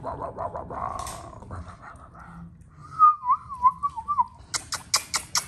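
American Akita puppies whining: a fast, pulsing whine at first, then a single high, wavering whine lasting about a second. A quick run of sharp clicks and taps follows near the end.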